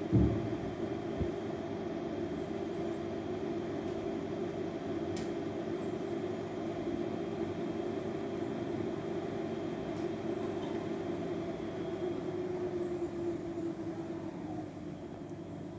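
Steady mechanical hum. A low thump comes just after the start and a softer one about a second later, and the hum eases a little near the end.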